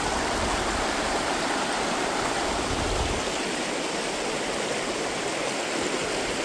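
Shallow river rapids rushing steadily over a stony bed.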